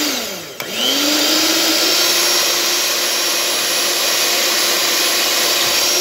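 Mondial Prática Duo Black stand mixer's motor beating cake batter with its beaters. The motor slows, a switch clicks about half a second in, and it spins up to a higher, steady whine that holds, starting to wind down at the very end.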